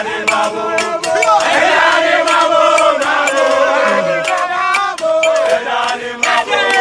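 A group of soldiers chanting and singing together as they march, many voices at once, with sharp clicks scattered through.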